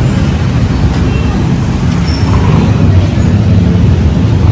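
Roadside traffic noise: a loud, steady low rumble of motor vehicles, with faint voices in the background.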